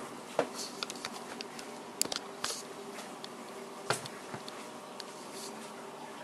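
Scattered light clinks and knocks of kitchenware being handled, with the sharpest knock about four seconds in, over a steady faint hum.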